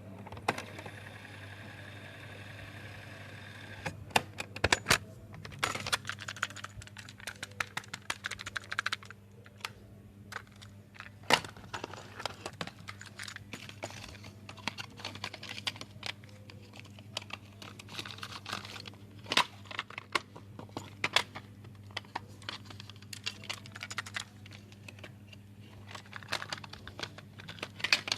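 A plastic cassette tape being handled: irregular clicks, taps and rattles. A steady whir stops about four seconds in.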